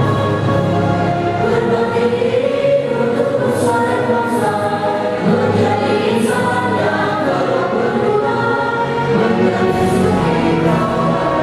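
Choir singing to instrumental accompaniment, with many voices holding sustained notes.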